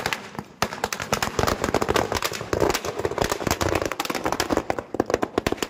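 A string of Diwali firecrackers going off: a rapid, irregular run of sharp cracks, many each second, that stops abruptly at the end.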